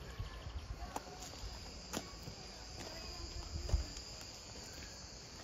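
Steady, high-pitched insect drone from the trees, coming in about a second in and holding until near the end, with a few sharp clicks over a low outdoor rumble.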